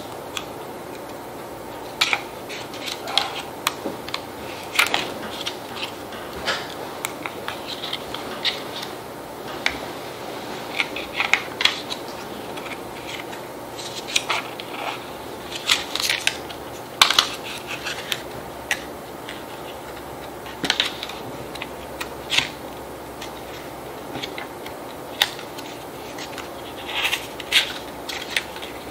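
Paper rustling and crinkling in short, irregular sounds, a few every second or two, as the pages and thin translucent interleaf sheets of a Viviva colorsheets watercolor booklet are handled and turned.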